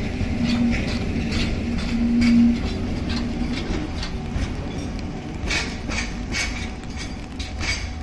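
DE10 diesel-hydraulic locomotive running as it hauls an EF81 electric locomotive past and away, a low engine rumble with a pitched note that is loudest about two seconds in and then slowly fades. Irregular sharp taps of rain on an umbrella sound over it.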